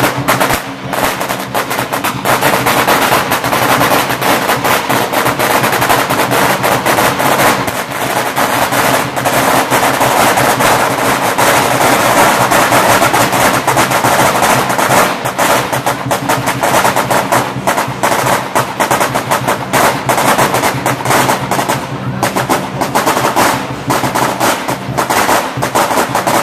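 Chinese dragon dance percussion: drums and cymbals beaten fast and loud in a dense, unbroken rhythm.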